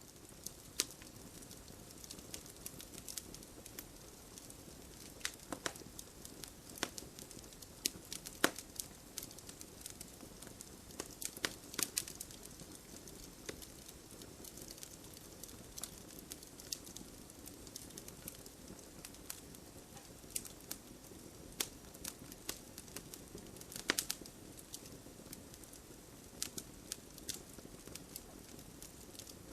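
Fire crackling: irregular sharp pops and snaps over a steady low hiss.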